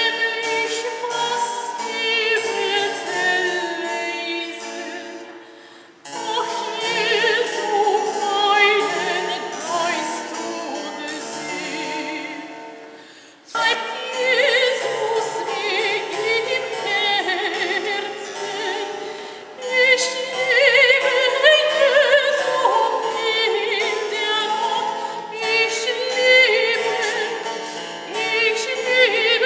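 A soprano sings an early-music song with vibrato, accompanied by a harpsichord. The music comes in phrases, falling away and starting again about six and about thirteen seconds in.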